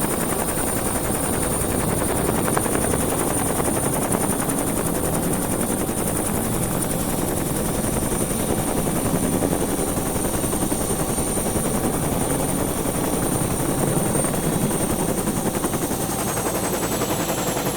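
Bell 212 helicopter heard from inside the cabin: its twin turbines and rotor make a steady, dense, rapid beating with a constant high turbine whine. Near the end the whine starts to drop in pitch.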